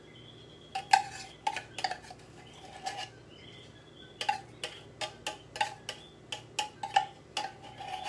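Metal utensil scraping and clinking against the inside and rim of an open tin can of condensed milk, emptying it into a bowl: irregular sharp metallic clinks, a few about a second in and then a quick run through the second half.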